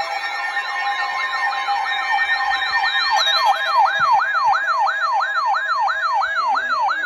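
Several electronic sirens sounding at once, their overlapping sweeps settling about three seconds in into one fast yelp that rises and falls about two and a half times a second.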